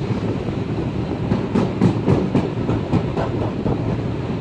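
Class 50 steam locomotive running, heard from the footplate: a steady rumble and rattle, with a run of sharp knocks of the wheels over rail joints and points from about a second and a half in to about three seconds in.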